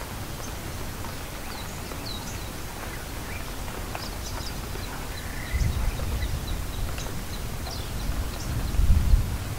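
Rain ambience: a steady hiss of rain with faint, high bird chirps scattered through it. A low rumble swells about halfway through and again, louder, near the end.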